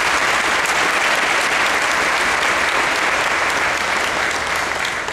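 Audience applauding: a steady wash of many hands clapping that eases off near the end.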